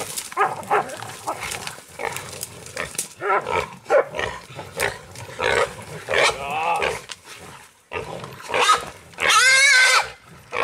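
A caught pig squealing in repeated short bursts while held by catch dogs, ending in one long, loud, wavering squeal about nine seconds in.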